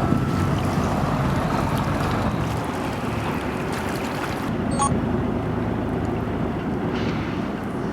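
A boat motor running steadily, a low even hum that eases slightly a few seconds in, with wind buffeting the microphone.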